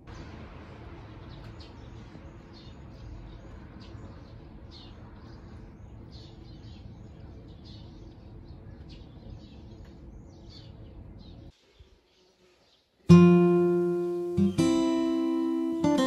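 Faint outdoor ambience, a low rumble with light high chirps scattered through it, which cuts off about eleven seconds in. After a moment of silence, acoustic guitar music comes in with a loud strummed chord, its notes ringing and fading, and plays on to the end.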